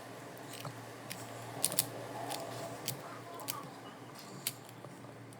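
Plastic 3x3 puzzle cube being turned by hand during a scramble: irregular sharp clicks of the layers turning and snapping into line, about one or two a second.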